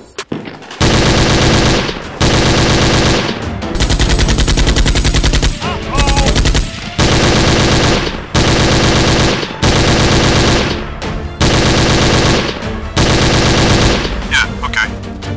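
Machine-gun sound effect: about nine bursts of rapid automatic fire, each about a second long, with short gaps between.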